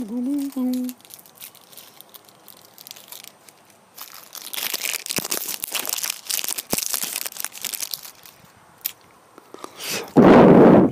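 Crinkling and crunching handling noise with many small clicks for several seconds. Near the end comes a loud, distorted rubbing as cloth presses against the phone's microphone.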